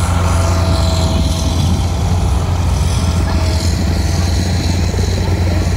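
Engine of a Bombardier tracked snow groomer running steadily under load as it climbs a snowy slope, a constant low hum with the hiss of snow and tracks over it.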